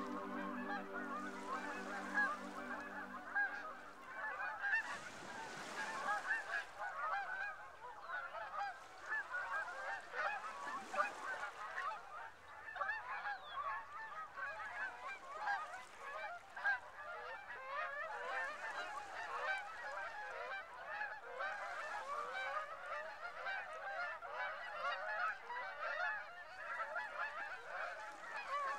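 A large flock of geese honking, many overlapping calls at once. Sustained music chords fade out during the first few seconds.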